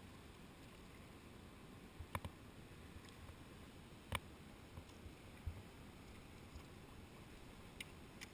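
Kayak paddling on calm flatwater: an almost quiet background broken by a few light clicks and taps from the paddle strokes, the sharpest about four seconds in.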